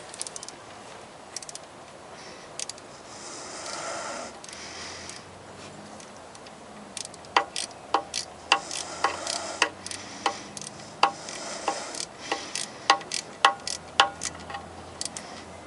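Hand ratchet wrench clicking as a bolt is tightened down to snug, about two sharp clicks a second through the second half, after a few seconds of quiet handling noise.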